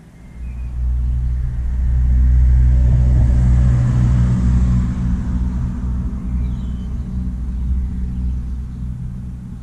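A motor vehicle driving past: a low engine rumble that swells over the first two seconds and then slowly fades away.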